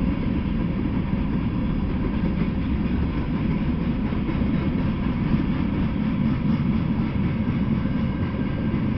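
Freight train of covered hopper cars and lidded gondolas rolling past at speed, a steady low rumble of wheels on rail.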